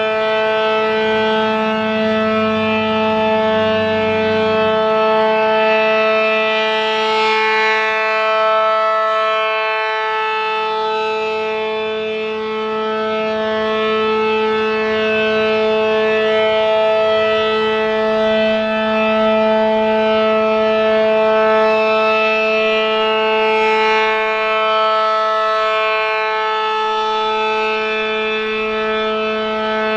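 ACA Allertor 125 rotating outdoor warning siren, fitted with a Penetrator 10 HP horn and an 8/12-port rotor, sounding the steady Alert signal. It is a loud, continuous two-note chord that holds its pitch, swelling and fading gently in loudness as the horn turns.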